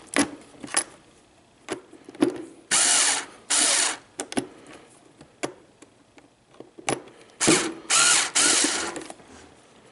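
Electric screwdriver run in four short bursts, two around three seconds in and two around eight seconds in, backing out the terminal-block screws that hold the vacuum's main power wires. Light clicks of metal wire connectors being handled and pulled off fall between the bursts.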